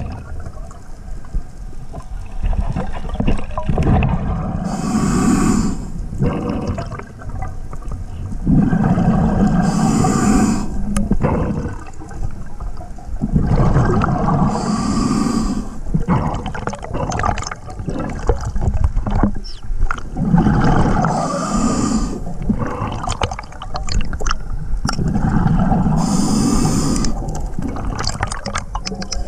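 Scuba diver breathing through a regulator underwater: five breaths about every five seconds, each a hiss with a rumble of exhaled bubbles.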